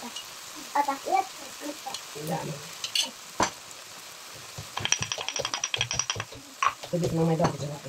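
Chicken, carrot and onion frying in a pan with a low, steady sizzle. About five seconds in, a pepper grinder is turned for a little over a second, giving a quick run of dry clicks.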